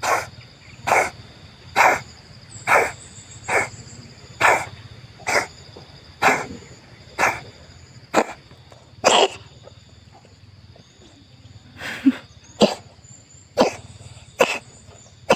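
A cat coughing over and over in short, harsh bursts, about one a second, with a pause of a few seconds about two-thirds of the way through.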